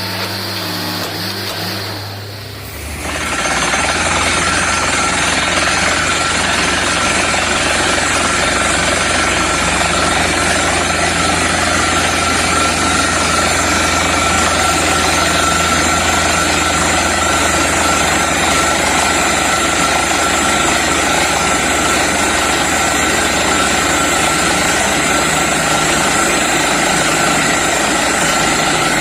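Borewell drilling rig and its air compressor running with a steady, loud mechanical noise and a low engine hum; about three seconds in the noise jumps up sharply and stays loud.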